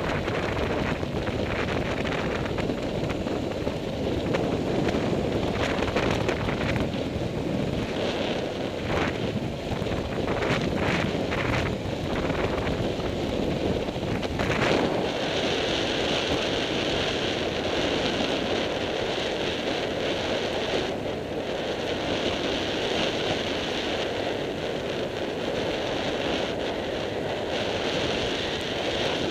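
Wind rushing over the microphone of a camera mounted on a moving motorcycle, mixed with the noise of the bike running along an off-road track. About halfway through a steady higher hiss joins in.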